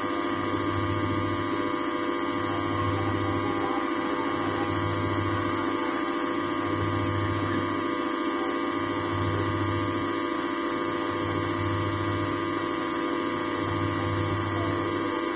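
Videocon washing machine's wash motor running with water in the tub: a steady mechanical hum and hiss, with a low hum swelling and fading about every two seconds. The wash is working again after the repair.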